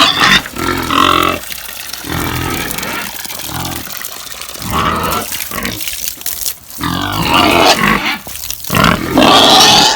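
Pigs grunting and squealing in loud, irregular outbursts, loudest at the start and again over the last few seconds.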